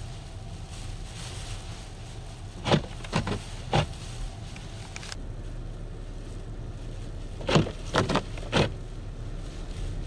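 Steady low rumble of vehicle engines running, broken twice by a quick series of three sharp loud bursts, a little under 3 seconds in and again near 8 seconds.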